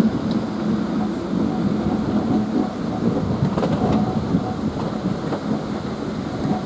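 Heritage train running along the line, heard from the cab: a steady low rumble of the locomotive and its wheels on the rails, with a few faint clicks.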